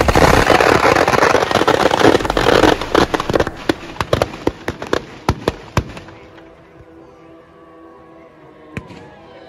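Firecrackers packed inside a burning Dussehra effigy going off in a dense crackling barrage of bangs. The bangs thin out to scattered single reports and mostly stop about six seconds in, with one more bang near the end.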